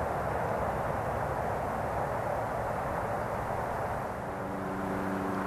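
Steady distant vehicle rumble that eases slightly, joined about four seconds in by a low steady engine-like hum.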